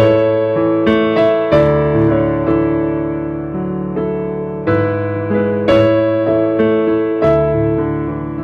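Instrumental music on a piano-type keyboard: slow chords and melody notes, each struck and left to ring while the next comes in.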